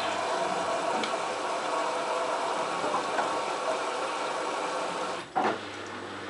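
LG F1443 front-loading washing machine running in its wash cycle: a louder spell of drum and motor running for about five seconds, ending with a brief loud knock, after which a quieter steady hum remains.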